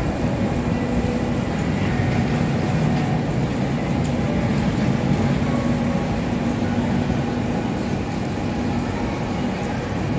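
Steady low rumble of city traffic, with a hum running through it.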